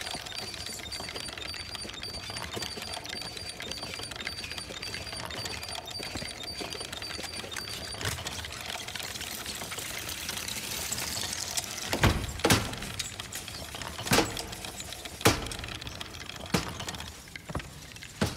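Small toy tricycle rolling over a tiled floor: a steady rattle with a fine, fast ticking. About two-thirds through, a series of sharp knocks and clicks follows.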